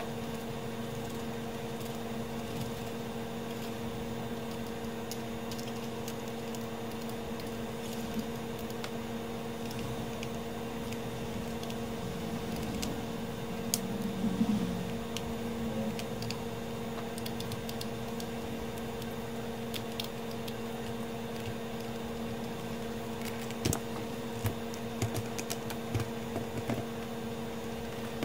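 A steady electrical hum throughout, with scattered light clicks and taps from handling the mixer unit, a small cluster about halfway through and several more near the end.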